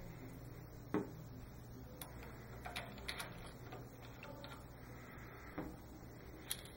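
Light metal clicks and taps as an aluminium brake balance-bar bracket is handled and set onto a row of kart master cylinders, the sharpest click about a second in and a few more near the middle and end, over a faint steady low hum.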